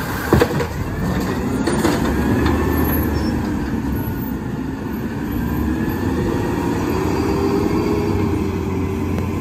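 Natural-gas Peterbilt 320 refuse truck with an Amrep automated side-loader: a knock just after the start as the arm sets the emptied cart on the curb, then the truck's engine pulling away, its pitch rising and dipping as it accelerates.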